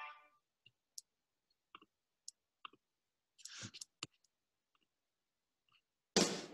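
Sparse, sharp clicks of a computer mouse, with a quick cluster of them in the middle. Music fades out at the start, and a loud song starts suddenly near the end.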